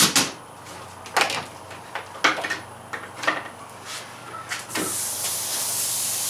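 A stiff fiberglass (Filon) sheet being handled and laid down onto a glued floor: a series of sharp knocks and flexing clatters about once a second. About five seconds in they give way to a steady hiss of hands sweeping across the sheet's surface to press it into the glue.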